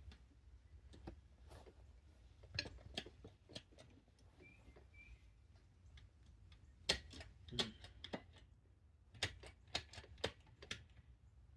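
Scattered light clicks and knocks from a motorcycle's gear shifter being worked to find neutral. The sharpest clicks come in a cluster about seven seconds in and again around nine to ten seconds in.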